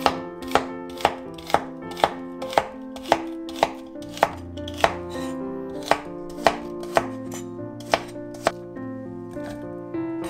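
Kitchen knife slicing celery stalks on a wooden cutting board: sharp, regular cuts about two a second. The cuts thin out and grow fainter near the end.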